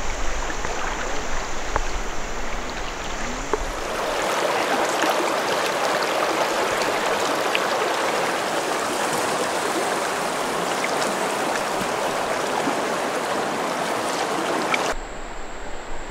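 River water rushing over rapids, a steady hiss of fast-flowing water. A low rumble sits under the first few seconds; about four seconds in the water sound becomes fuller and louder, then drops away abruptly near the end.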